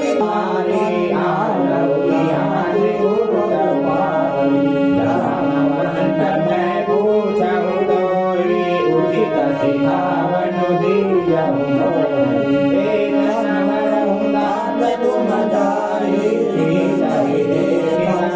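Devotional kirtan: voices singing a bhajan together with instrumental accompaniment, a continuous melodic song.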